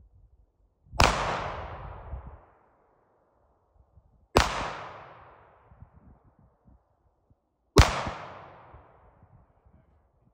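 Three pistol shots, evenly spaced about three and a half seconds apart, each followed by a fading echo.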